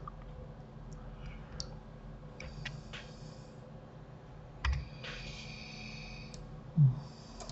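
Scattered clicks of a computer mouse and keyboard keys over a faint steady hum, with a short low thud about two-thirds of the way through and another, louder one near the end.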